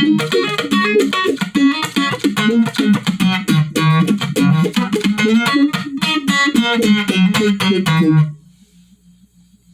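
Electric guitar played through a Malekko Phase phaser pedal: a busy run of quick picked notes with the phaser effect on them. The playing stops about eight seconds in, leaving only a faint amp hum.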